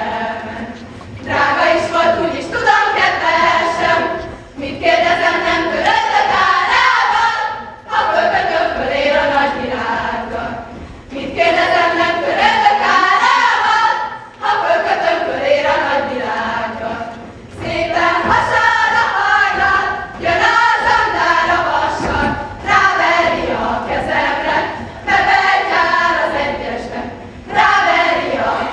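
Group of young women singing a Hungarian karikázó folk song together in unison, without instruments, in phrases of about three seconds with short breaks for breath between them.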